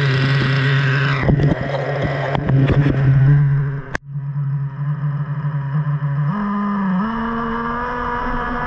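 Traxxas Revo 3.3 nitro monster truck's two-stroke glow engine idling steadily, with knocks and rattles from about one to three and a half seconds in and a brief cut-out with a click near four seconds. About six seconds in the engine speed steps up twice as the truck pulls away.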